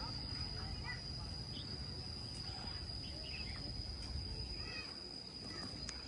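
Rural outdoor ambience: a steady high-pitched insect drone, with scattered faint bird chirps over a low rumble.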